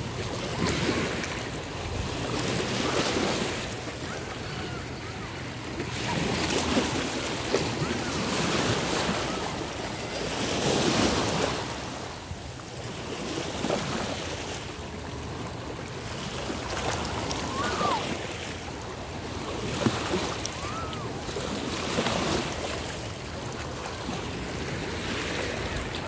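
Ocean surf breaking and washing up the beach, the rush of water swelling and falling back every few seconds.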